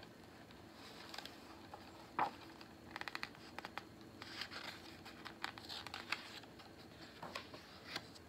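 Faint rustling, scratching and clicking of hands handling a large picture book's paper pages, with a brief sharp tick about two seconds in and a page being turned in the second half.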